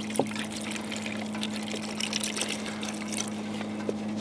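Bone broth pouring steadily into an enamelled cast iron Dutch oven over meat and vegetables, with many small splashes.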